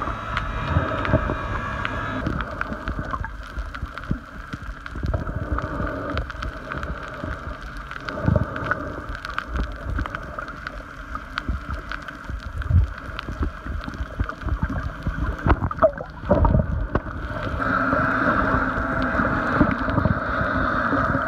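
Muffled underwater sound picked up by a camera in a waterproof housing during snorkelling: water movement and gurgling with irregular low thumps and scattered small clicks, over a steady hum that grows louder near the end.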